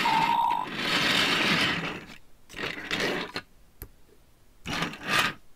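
Wheels of a Peppa Pig toy train rattling as it is pushed along a tabletop, a steady mechanical rattle for about the first two seconds. It is followed by a couple of short bursts of handling noise as toy figures are set down.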